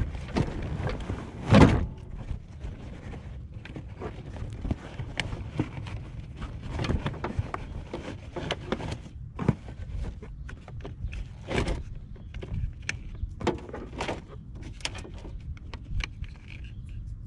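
Irregular knocks, clicks and scraping of a car battery and its felt insulation cover being handled and settled into the battery tray under the hood. There is one loud thump about a second and a half in.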